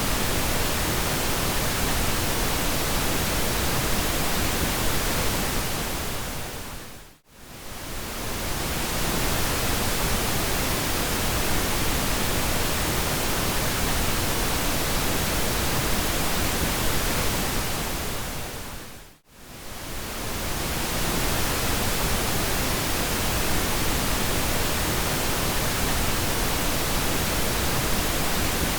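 Steady synthetic pink noise, an even hiss spread from deep rumble to high treble. It fades briefly almost to silence and swells back twice, about twelve seconds apart, like the seams of a looped track.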